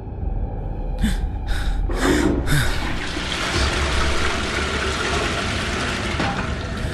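Four short, sharp breaths like gasps, about half a second apart. Then, about three seconds in, a steady rush of running water starts, as from a tap into a washbasin.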